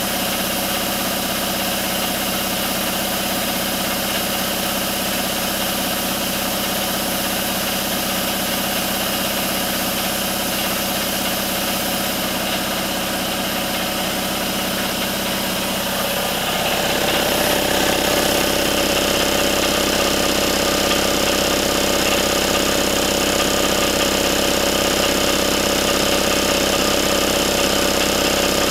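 1993 Craftsman 30-gallon, 5 HP, 240 V air compressor running steadily with air being drawn off. It grows louder a little past halfway.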